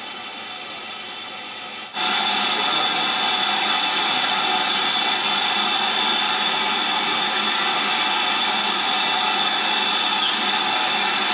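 A train of coaches rolling by with a steady hum for about two seconds, then an abrupt cut to a loud, steady hiss of steam from a BR Standard Class 4 tank locomotive standing at the platform.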